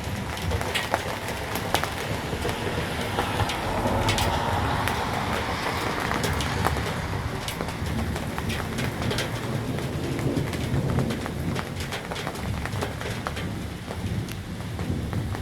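Steady rain during a thunderstorm, with many drops ticking sharply on a hard surface and a low rumble of thunder rolling through the middle.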